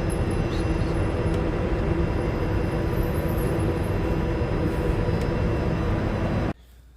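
Steady low rumbling background noise of an outdoor range, with no shots, cutting off abruptly near the end.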